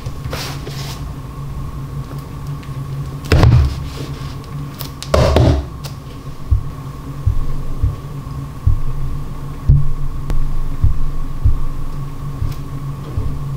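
A low, droning background music bed with a steady high tone and a soft, regular low beat about one and a half times a second. Two loud rustling knocks, about three and five seconds in, come from a shrink-wrapped cardboard box being set down and slid on the table.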